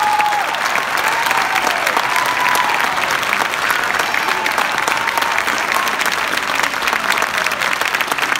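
A large audience clapping steadily, with a few voices calling out in the first seconds.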